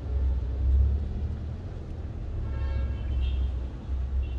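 Steady low rumble of background noise, with a faint, brief pitched sound about two and a half seconds in.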